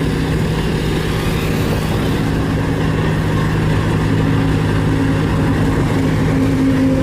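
Compactor engine running steadily, an even low drone that holds constant throughout.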